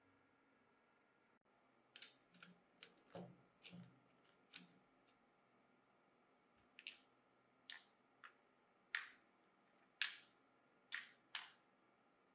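Sharp clicks and light knocks of a corded drill and its metal chuck key being handled, about fifteen scattered over several seconds, with a few duller knocks among the first ones.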